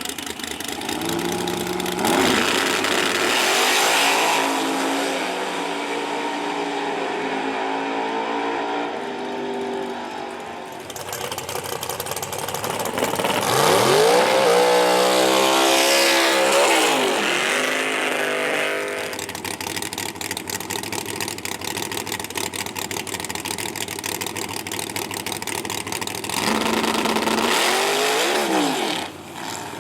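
Drag race cars' engines running hard at full throttle. About halfway through, a car goes by with its pitch rising then falling, and a shorter pass comes near the end.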